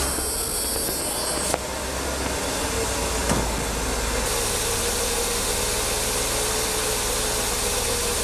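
Mercedes-Benz 560SL's 5.6-litre V8 idling steadily just after being started, heard at the open engine bay.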